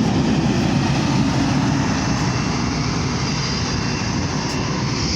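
Helicopter running: a loud, steady engine and rotor noise with a faint high whine.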